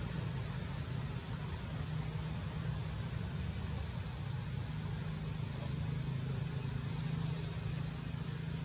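Steady, unbroken high-pitched insect drone from the forest canopy, with a steady low hum underneath.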